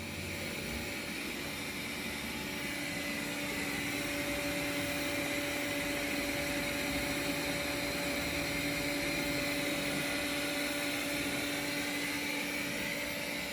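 Robot vacuum cleaner running: a steady motor and fan hum with two steady tones, growing slightly louder over the first few seconds.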